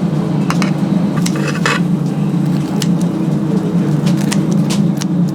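A steady low machine hum with scattered light clicks and ticks over it.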